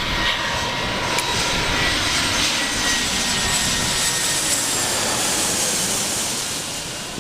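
Jet airliner's engines running loudly, with a steady rushing noise and thin high-pitched turbine whines; the sound eases off slightly near the end.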